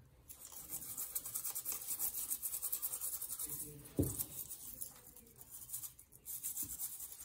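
Toothbrush bristles scrubbing rapidly back and forth over a wet graphics-card circuit board in soapy water. A single knock comes about four seconds in, after which the scrubbing is quieter and comes in a shorter run near the end.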